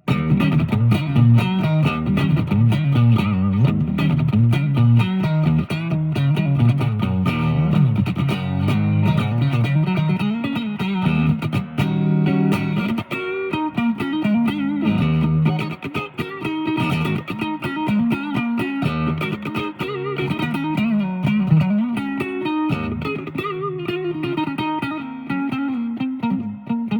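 Fernandes TEJ-70 electric guitar being played in a sound test: a continuous stream of quick picked notes and phrases, with much of the weight in the lower strings.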